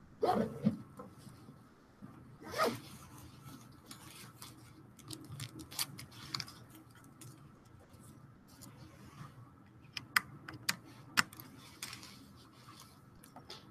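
Scattered clicks, taps and rustles of people handling things in a quiet room, with a brief rustling burst at the start and three sharp clicks about ten to eleven seconds in.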